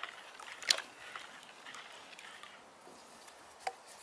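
Wooden stick stirring timber preservative in a bucket: the liquid swishes and sloshes, and the stick knocks sharply against the bucket, loudest about a second in and again near the end.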